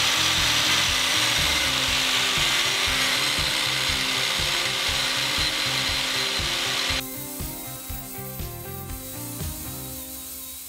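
Angle grinder held against a brass handle turning in the lathe, grinding it down with a steady hiss and whine to blend in the rough shape. About seven seconds in the grinding noise cuts off suddenly, leaving the motors running more quietly.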